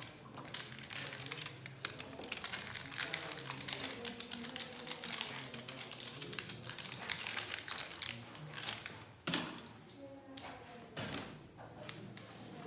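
Rapid, irregular clicking and crinkling of small objects and packaging being handled, with faint voices in the background.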